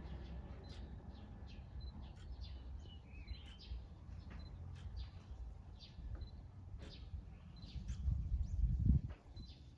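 Small birds chirping, many short calls scattered throughout, including one brief high note repeated every second or so. Underneath is a steady low rumble that grows louder near the end.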